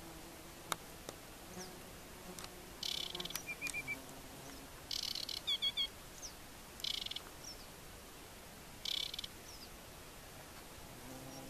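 Aquatic warbler singing: short dry rattling phrases about every two seconds, with a few clear whistled notes between them.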